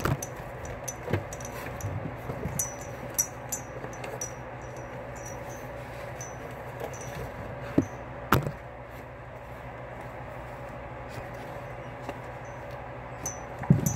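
Scattered knocks and light clinks of things being handled and moved close by, over a steady hum; the sharpest knock comes about eight seconds in.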